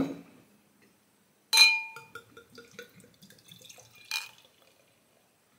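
Beer poured from a glass bottle into a tilted drinking glass, gurgling in small irregular pulses. It opens with a sharp ringing glass clink about a second and a half in and has a second clink near the end of the pour.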